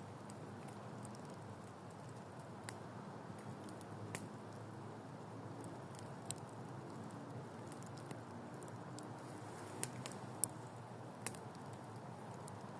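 Wood campfire burning, with a steady low hiss and scattered sharp crackles, a handful of them louder pops.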